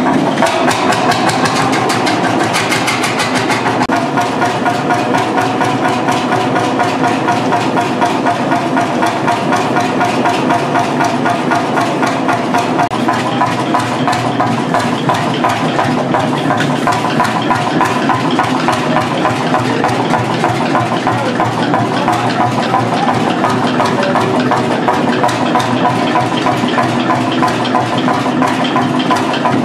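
1928 H.S.C.S K35 tractor engine running steadily with a fast, even beat.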